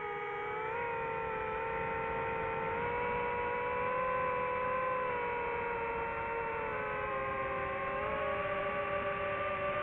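DJI FPV drone's motors and propellers whining in flight: a steady, many-toned hum whose pitch wanders slightly up and down.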